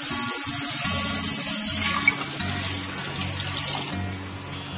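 Tamarind water being poured into a hot steel pan of sautéed onions and tomatoes, a rushing splash of liquid that eases off about four seconds in.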